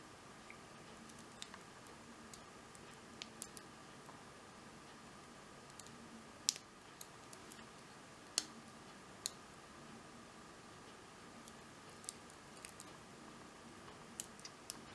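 Faint, irregular small clicks of a lock pick and tension wrench working the pins inside a 16-pin Papaiz cruciform padlock during single pin picking, the sharpest click about halfway through. A faint steady hum lies underneath.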